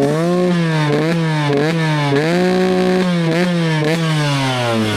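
Yamaha YZ125 two-stroke single-cylinder dirt bike engine warming up, the throttle blipped again and again so the revs rise and fall, with one longer hold in the middle; it drops back to a steady idle at the end.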